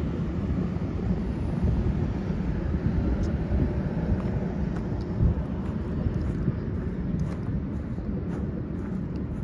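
Steady low rumble of road traffic, a white passenger van driving away and distant cars, with a few faint light clicks.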